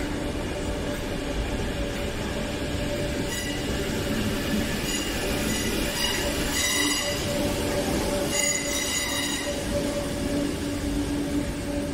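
Merseyrail electric train running with a steady rumble and hum, with high-pitched squealing in four short stretches through the middle.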